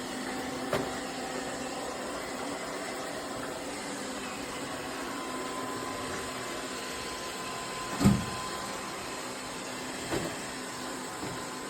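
ZCWA robot vacuum running with a steady whirring hum. A thump about eight seconds in, with lighter knocks near the start and about ten seconds in.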